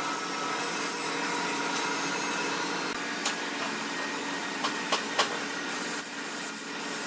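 Compressed-air spray gun hissing steadily as it sprays a finish coat onto a large wood slab, over a low steady hum, with a few light clicks in the second half.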